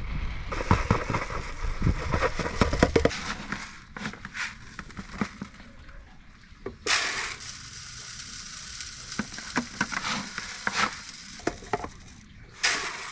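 Dry chicken feed poured from a scoop into a feeder: a dense rattling pour for the first three seconds or so, then scattered ticks of pellets, with two short rushes of noise about seven seconds in and near the end.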